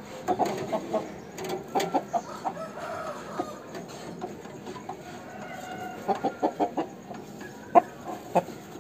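Aseel rooster clucking: quick runs of short notes near the start and again about six seconds in, then two sharp single clucks near the end.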